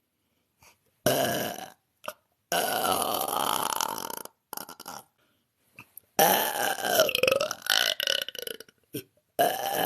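A woman belching on purpose, one burp after another: a short burp, then a long, drawn-out belch, a few short ones, another long belch whose pitch wavers, and a last one starting near the end.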